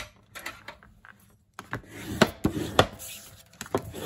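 A bone folder scraped firmly back and forth along the fold of a thick white cardstock card base, burnishing the crease. Soft paper rustling at first, then from about a second and a half in a run of loud rubbing strokes with sharp knocks roughly every half second.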